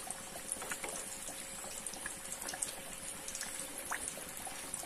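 Breaded potato pieces deep-frying in hot oil: a steady sizzle with many small scattered crackles and pops.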